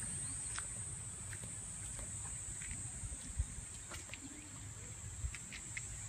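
Insects droning steadily on one high pitch, over a low rumble on the microphone, with two soft thumps about three and a half and five seconds in.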